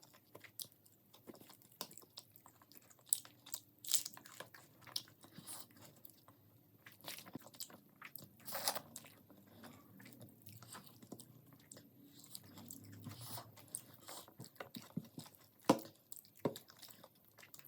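Close-miked eating: crunchy bites and chewing, a string of irregular crisp crunches with softer chewing in between.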